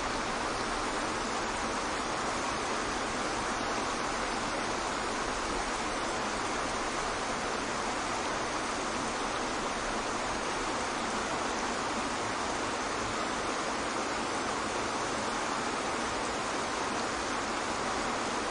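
Waterfall: falling water in a steady, unbroken rush.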